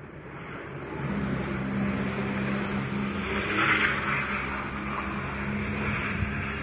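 Car engine held at high revs while the car drifts and spins its wheels on an icy road: a steady engine note comes in about a second in and holds, over a rush of tyre and spray noise that swells a little past the middle.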